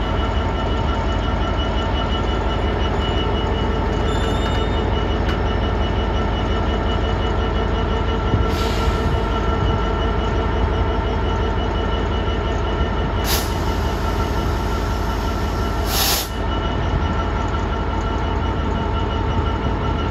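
Class 66 diesel locomotive's EMD two-stroke V12 engine running with a steady drone as it moves slowly past. There are three short hisses partway through.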